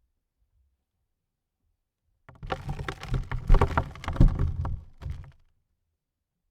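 Dirt landing on a coffin lid: a dense patter of many small impacts with heavy thuds underneath, starting about two seconds in and lasting about three seconds, with a last clump just before it stops.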